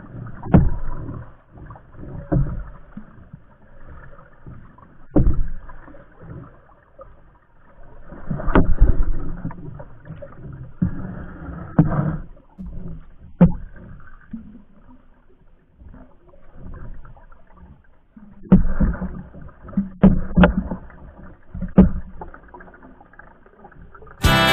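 Wooden paddle stroking the water beside a small wooden outrigger boat, with splashing swells and occasional sharp knocks at uneven intervals. Music comes in suddenly right at the end.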